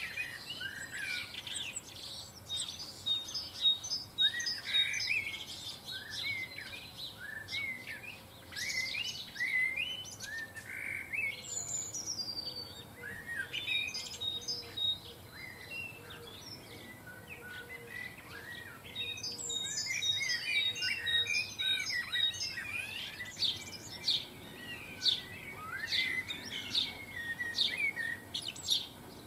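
Small garden songbirds chirping and twittering, with many short calls overlapping throughout and a few quick high trills, busiest about two-thirds of the way through.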